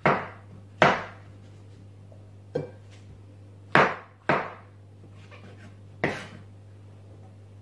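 Kitchen knife slicing mushrooms on a plastic chopping board: about six sharp knocks of the blade hitting the board at uneven intervals, with a steady low hum underneath.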